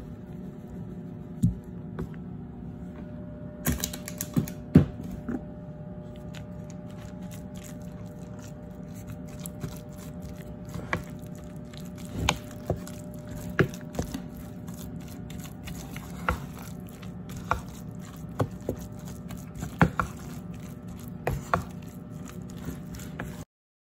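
Salmon patty mixture being mixed in a bowl: irregular clicks and knocks of the utensil against the bowl over a steady low hum, cutting off suddenly near the end.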